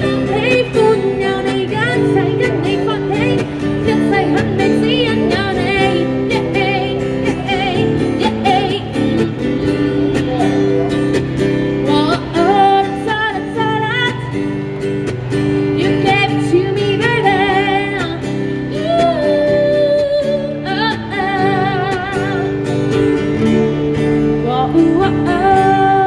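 A woman singing a slow song with vibrato into a microphone, accompanying herself on acoustic guitar, both amplified through a small street amplifier.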